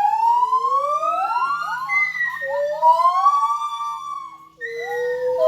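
Several animals calling together in long, overlapping whoops that glide up and down in pitch, breaking off about four seconds in and starting again lower, with a run of short quick notes near the end.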